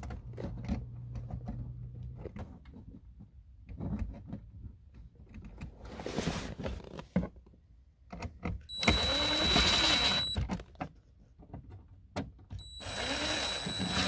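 Light clicks and knocks of a plastic trim panel being fitted by hand, then a DeWalt 20V MAX cordless impact driver running in two bursts of about a second and a half each, with a steady high whine, driving the panel's screws in.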